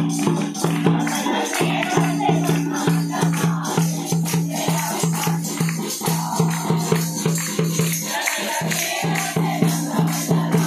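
Christmas carol music: a group singing with a tambourine shaking over a low beat that pulses about three times a second, the beat breaking off briefly twice.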